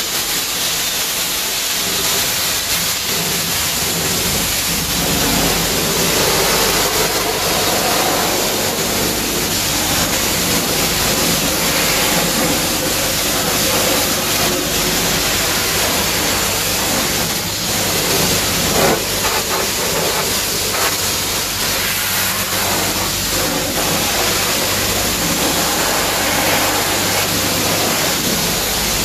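High-pressure washer lance spraying a jet of water onto a car's wheel and wheel arch, rinsing off snow foam and loosened dirt. A continuous hiss of spray with a steady low hum underneath.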